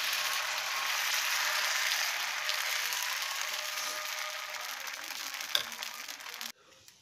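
Rice-and-coconut batter sizzling on a hot oiled griddle as it is ladled on and spread into a round appam. The sizzle fades slowly, with a single click about five and a half seconds in, and cuts off suddenly near the end.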